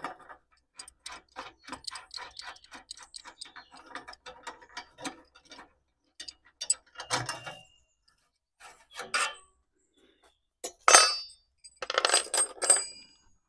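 A ratchet wrench clicks quickly and evenly, about five clicks a second, as the last bolt on the exhaust muffler's clamp bracket is undone. After that come a few sharp metal clinks and clanks as the loosened bracket and screws are handled, with a cluster of them near the end.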